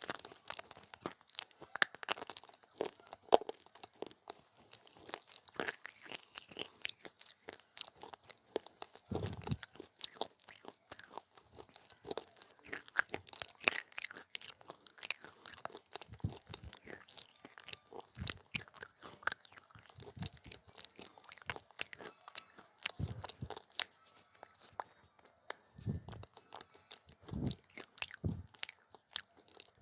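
Close-up biting and chewing of crunchy baked clay pieces: dense, crisp crackling crunches, with a few short low thumps.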